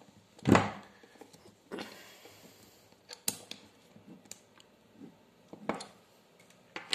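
A metal drill chuck being handled and fitted onto an electric drill by hand: scattered clicks and knocks of metal parts, the loudest about half a second in and a few more spread through.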